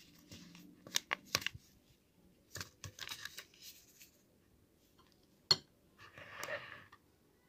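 Faint kitchen handling sounds: scattered light clicks and knocks of utensils and containers, one sharp click about halfway through, then a short rustle.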